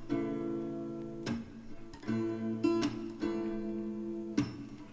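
Acoustic guitar strumming chords in a soft background song, each chord struck and left to ring, with no singing.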